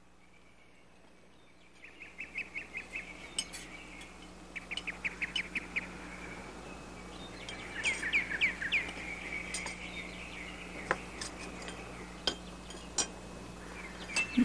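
Birds chirping in quick runs of short repeated notes, starting about two seconds in after a moment of near silence. Near the end come a few sharp clinks of cutlery on dishes.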